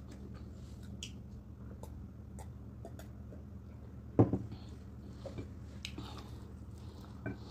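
Close-miked eating sounds: small wet clicks and squishes of fingers picking at rice and stew and of chewing. A single loud thump about four seconds in, and a smaller one near the end.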